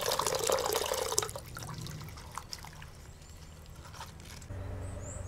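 Water running and splashing for about a second, then stopping, followed by scattered drips and small clicks. About four and a half seconds in it gives way to a steady low hum, with a short high chirp near the end.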